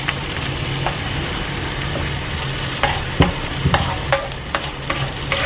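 Onion and ginger-garlic paste sizzling as they fry in melted butter in a frying pan, stirred with a wooden spoon. The spoon knocks and scrapes against the pan a few times in the second half.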